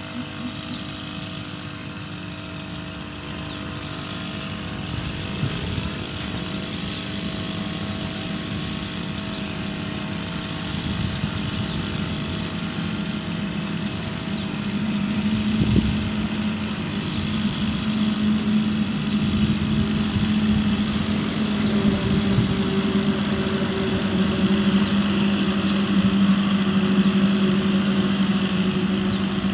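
Engine of a motorized crop sprayer running steadily in a rice paddy. It makes a continuous drone that grows louder about halfway through.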